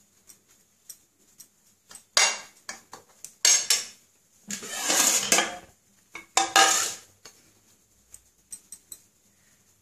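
Two metal spoons scraping and clinking against a glass bowl as chicken pieces are tossed in a dry flour and biscuit-crumb coating. Light ticks at first, then four louder scraping passes between about two and seven seconds in.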